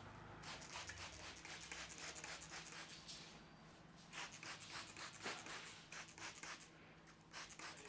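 Faint, quick scratchy strokes of hands rubbing through hair and over the scalp during a dry head massage. They come in runs, with short pauses about three and a half seconds in and again near the end.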